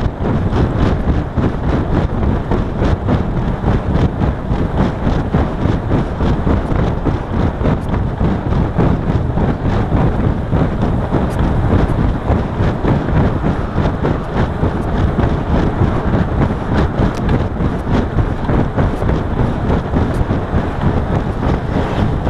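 Wind buffeting the microphone of a camera on a road bike moving at speed: a loud, steady rumble.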